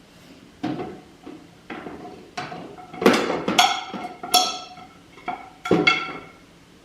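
Dishes and utensils being handled, clinking and clattering in a series of about seven knocks, each with a short ring, loudest in the middle.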